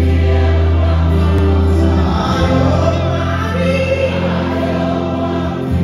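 Live gospel worship music: voices singing over sustained low chords that change about two seconds in.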